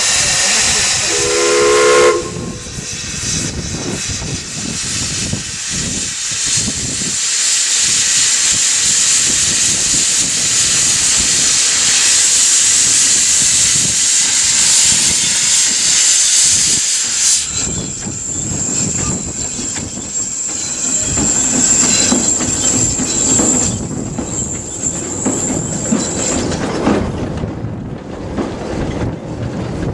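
Barclay narrow-gauge steam locomotive: a brief whistle note about a second in, then loud steam hissing from its open cylinder drain cocks as it gets away. A thin, steady high hiss carries on after the louder hiss dies down, and toward the end the carriages roll past with a low rumble and the clicks of wheels on rail joints.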